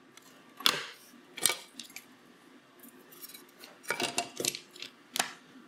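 Small hard parts being handled on a workbench: printed circuit boards and pin header strips picked up and set down, giving a few sharp clicks and light clatters at irregular intervals, with a quick cluster about four seconds in.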